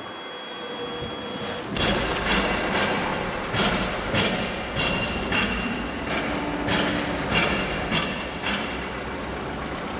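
Street traffic noise: a steady rumble of vehicles that grows abruptly louder about two seconds in, with sharp clatters repeating roughly every half second to second.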